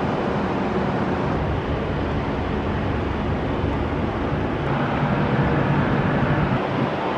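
Wind buffeting the camera microphone on a high-rise balcony: a steady low noise with no let-up.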